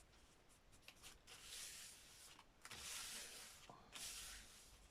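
Near silence, with a few faint, soft rubbing sounds such as paper or a tool brushing over a page.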